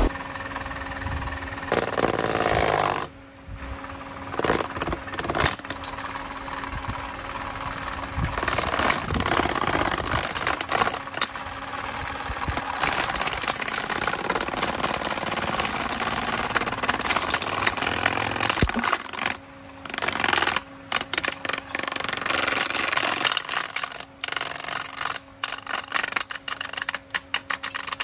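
Homemaker stand fan running while a metal rod is jammed through its grille into the spinning plastic blades, which clatter and rattle rapidly against it over a steady hum. In the last third the clattering comes in short, choppy spurts with brief gaps between them.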